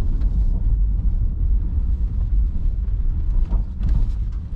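Honda Ridgeline pickup driving over slushy ice, a steady low rumble of engine and tyres.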